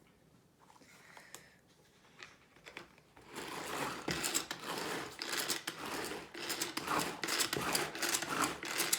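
Tupperware Power Chef pull-cord chopper being worked with quick repeated pulls, each pull a rasping zip of the cord as the blade spins through the salsa ingredients. The pulls start about three seconds in, after a few faint handling sounds.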